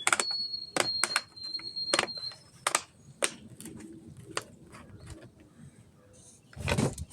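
A string of sharp clicks and knocks as objects are handled and set down, with a faint high steady tone for the first two seconds or so and a longer scraping rustle near the end.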